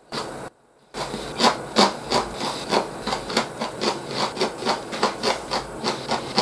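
A person chewing crunchy pickled vegetables with the mouth open, a steady crunch about three times a second. It starts about a second in, after a moment of quiet.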